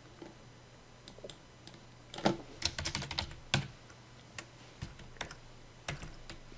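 Computer keyboard typing: a quick run of keystrokes between about two and three and a half seconds in, then a few spaced single clicks.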